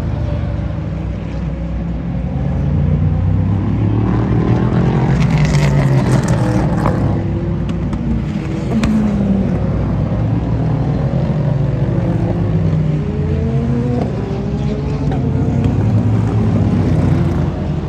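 Endurance race cars passing at speed one after another, engine notes rising and falling as each car comes through and pulls away.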